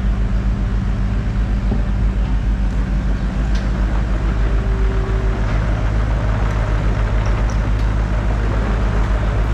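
Diesel engine of a piece of construction equipment running steadily at idle close by, a deep even rumble.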